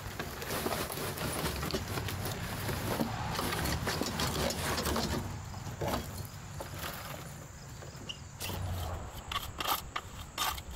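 Topsoil and small stones sliding and tumbling out of a tipped wheelbarrow onto a gravel bed, a rough rushing pour with stony clatter that fades after about five seconds. Near the end a rake scrapes through the soil in a few short strokes.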